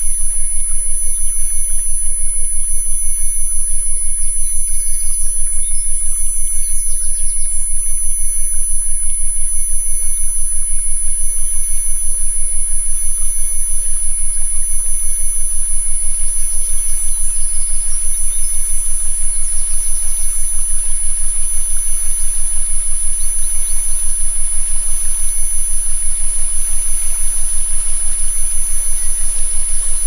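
Synthesized 'healing frequency' tones: a low hum pulsing rapidly and evenly, with several steady high whistle-like tones above it, the loudest a piercing high one. Faint forest ambience lies underneath.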